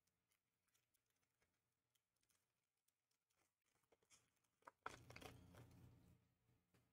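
Near silence with faint clicks of hockey cards and packaging being handled. About five seconds in comes a louder rustle lasting about a second and a half.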